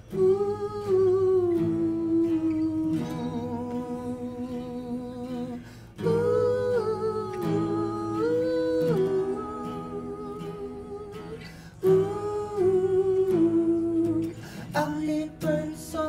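Two male voices singing a wordless melody in long held phrases over two strummed acoustic guitars, in a dreamy pop/folk song.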